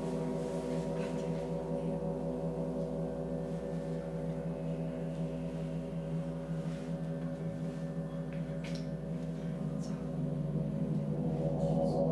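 Large hanging gong played with a felt-headed mallet: a sustained wash of many overlapping held tones that swells louder near the end.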